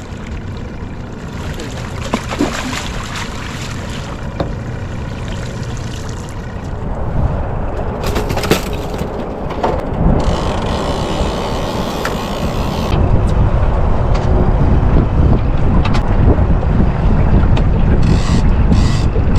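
Boat motor running with wind buffeting the microphone; the low rumble grows heavier about two-thirds of the way through.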